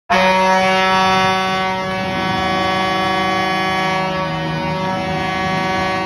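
Hockey arena goal horn, a truck air horn and a ship horn sounding together in one long held blast that starts abruptly, with the mix of horn tones shifting about two seconds in. It is the horn sounded to mark a home-team goal.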